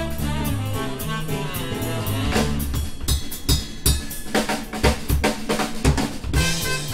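Live small jazz band with a drum kit break: drums and cymbals play over bass and chords at first, then the drummer plays fills almost alone. The horns come back in near the end.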